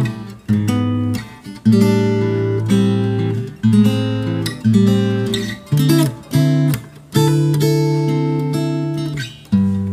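HEX STING F300CE G acoustic-electric guitar (solid Sitka spruce top, sapele back and sides) played solo: chords strummed about once a second, each left to ring before the next.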